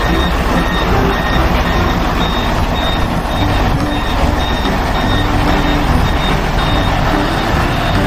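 Truck engine running with its reversing beeper sounding about twice a second.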